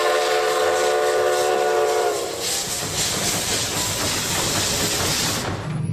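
Steam locomotive whistle held on one steady chord, then a loud hiss of escaping steam. The hiss cuts off suddenly near the end.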